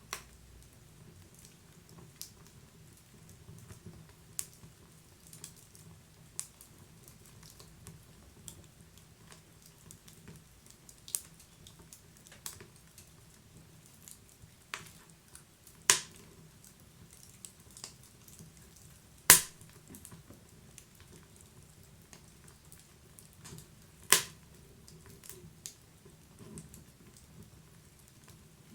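Wood fire crackling: a low steady hiss of burning under irregular sharp snaps and pops. A few pops are much louder than the rest, the loudest a little past the middle.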